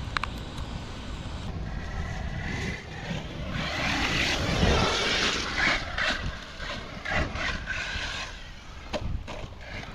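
Arrma Vorteks 223S RC truck's brushless motor whining as it speeds over wet concrete, with tyre and spray noise swelling in the middle, then a few sharp knocks near the end as it lands.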